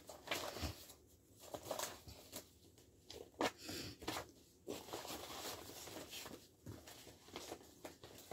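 Soft, intermittent rustling of coloured paper slips being sifted by hand in a wicker basket, with a few light knocks.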